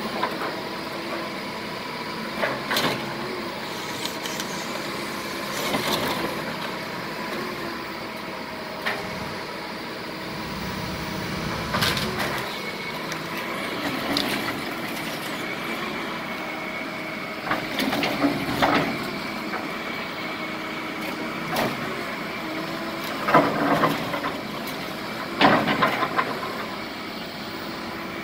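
Heavy diesel machinery running steadily while debris is moved, with irregular clanks and knocks of debris, the loudest two near the end.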